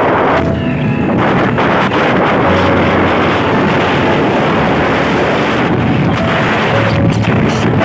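Heavy wind rush on the microphone with the running noise of a moving vehicle and its tyres on the road, a steady loud roar throughout.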